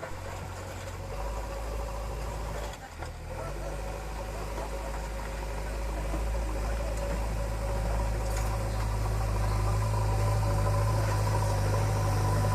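A construction machine's diesel engine running steadily with a low hum. It drops out briefly about three seconds in, then grows gradually louder, as if the machine is coming closer or working harder.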